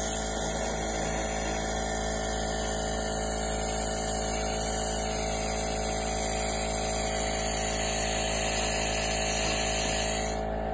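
Laser cleaner stripping a cast iron skillet: a steady high hiss over a machine hum with several fixed tones. The hiss cuts off near the end as the laser stops firing, and the hum carries on.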